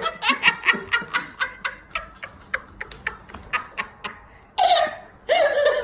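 A person laughing hard in a run of short breathy pulses, about four a second, trailing off, then two louder bursts of laughter near the end.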